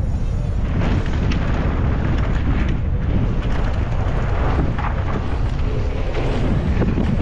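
Wind buffeting the microphone of a helmet camera on a mountain bike at speed, a constant low rumble, with scattered clicks and rattles from the bike running over dirt.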